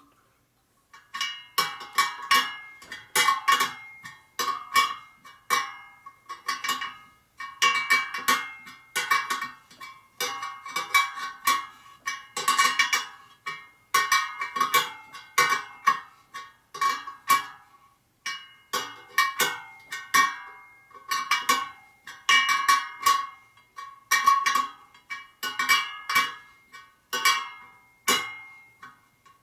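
Steel spokes of a laced motorcycle wheel pinging and ringing in quick runs of metallic clicks with short pauses between them, as the spoke nipples are turned about two flats tighter with a spoke wrench to pull the rim over and true it.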